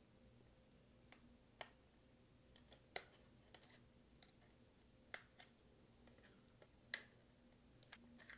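A handful of small, sharp clicks and taps scattered a second or so apart: plastic spudger tips prying at and releasing the small connectors on a circuit board.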